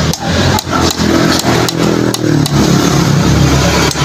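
Hammer tapping a socket used as a drift about seven times, uneven blows, driving a needle bearing into a Bajaj RE rear hub. Under it a motorcycle engine runs steadily, growing louder about three seconds in.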